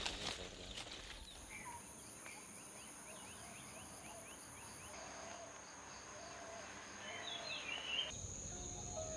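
Rural outdoor ambience: insects keep up a steady high-pitched drone while small birds chirp, with a quick run of short repeated chirps in the first half and a few scattered calls later.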